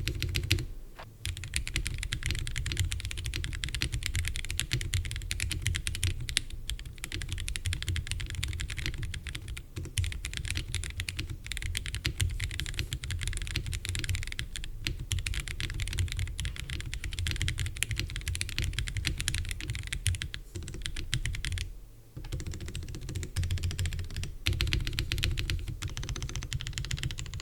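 Fast continuous typing on an MYNK65 65% mechanical keyboard with Ajazz Blue Sky tactile switches and PBT keycaps, an acrylic-stack, gasket-mounted build with a polycarbonate plate and the case foam removed. The typing pauses briefly about a second in, near ten seconds and around twenty-two seconds.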